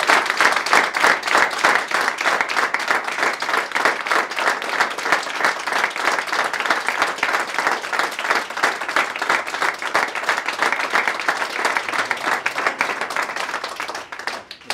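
A small group of people applauding, a dense run of hand claps that drops away near the end.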